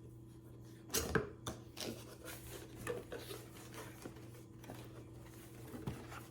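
Cardboard parts of a flat-packed cat scratcher box being handled, giving irregular light knocks and rustles, the loudest cluster about a second in, over a faint steady hum.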